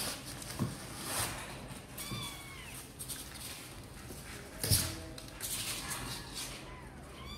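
Young kittens mewing, several short high calls that arch up and fall, with their claws scrabbling on the cardboard walls of the box. A single knock about two-thirds through is the loudest sound.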